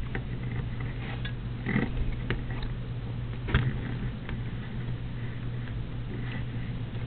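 Hands tying knots in embroidery floss close to the microphone: faint rustling and a few short, soft scuffs and taps over a steady low hum.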